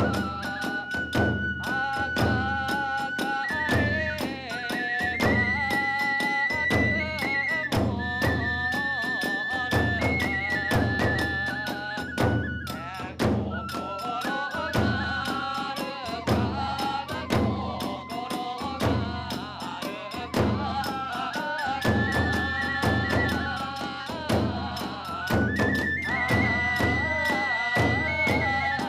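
Kagura hayashi ensemble playing: a transverse bamboo flute carries a melody of long held high notes over rapid, steady drum and cymbal strokes.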